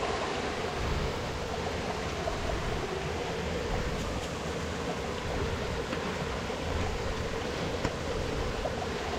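Steady rush of water running over rocks in a waterfall stream, with a couple of faint clicks.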